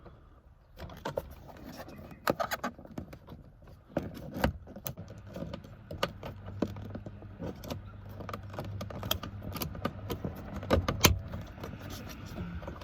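A metal hex key clicking, scraping and rattling inside the back of a Volvo S60's steering wheel as it is pushed down and sideways against the airbag's release bar. The clicks are sharp and irregular, the loudest a little before the end, with a faint low hum in the middle.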